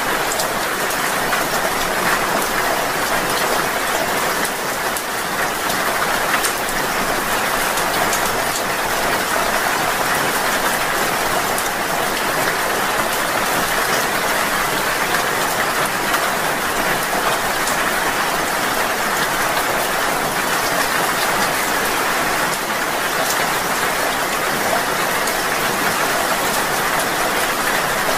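Steady rain falling, an even, unbroken hiss with fine ticks of individual drops scattered through it.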